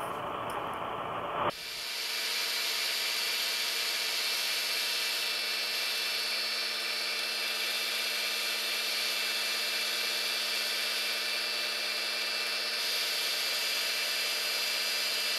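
Bridgeport milling machine running, its end mill cutting across the top face of a metal part as the table is fed by hand. It is a steady cutting and spindle sound with several steady whining tones, starting abruptly about a second and a half in.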